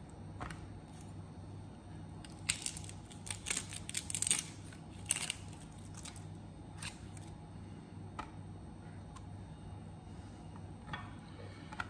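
Papery outer skin of a red onion being peeled off by hand, crackling in a quick cluster of short rustles a few seconds in, then a few lone clicks, over a steady low hum.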